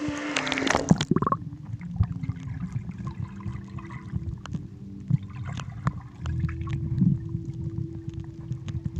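Water splashing at a swimming pool's surface, then about a second in the sound turns muffled as the camera goes underwater: a low rumble of moving water with scattered bubbling clicks.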